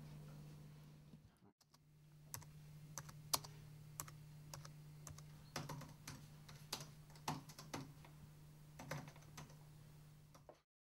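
Typing on a laptop keyboard: irregular key clicks over a steady low hum. The clicks begin after a brief dropout about a second and a half in, and the sound cuts off abruptly near the end.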